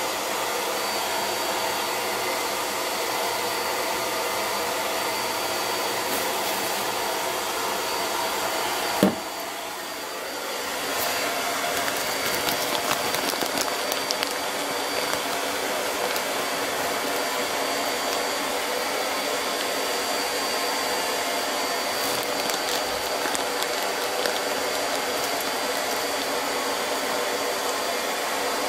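Loud, steady whirring of a fan- or motor-driven appliance. About nine seconds in there is a sharp click, and the whir drops for a second or two before it returns.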